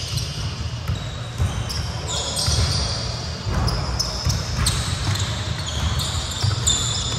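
Pickup basketball on a hardwood gym floor: the ball bouncing, players' running footsteps, and many short, high sneaker squeaks.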